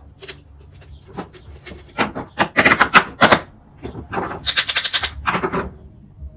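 Rapid clicking and clattering of hand tools and small metal carburetor parts being worked on a bench, in two bursts of about a second and a half each, starting about two seconds in and about four seconds in.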